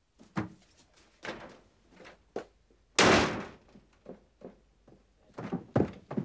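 A door slams shut about three seconds in, the loudest sound, among lighter knocks and thuds before and after it.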